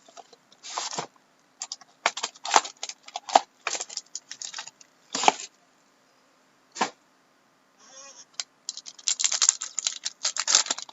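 Trading cards and their packaging being handled: irregular clusters of sharp clicks and rustles as packs are opened and cards are pulled and handled, with a pause about two-thirds of the way through.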